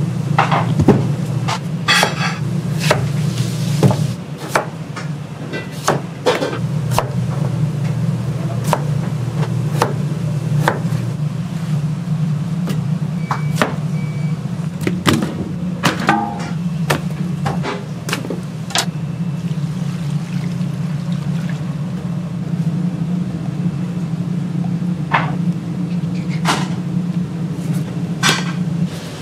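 Kitchen work sounds: irregular knocks and clatters of cookware, utensils and dishes being handled, over a steady low hum.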